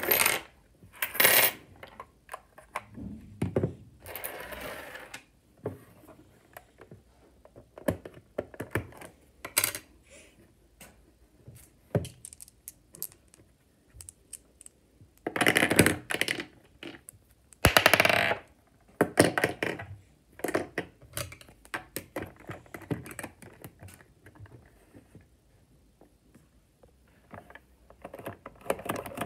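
Plastic Lego bricks clicking and clattering as a Lego candy machine is handled, turned over and opened up, with small balls rattling about in it and in the hand. Irregular clicks and knocks, broken by several louder clattering rushes about a second long.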